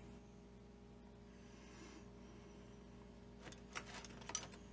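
Near silence with a faint steady hum, then a few faint clicks near the end as metal tools are handled in a plastic tub of vinegar.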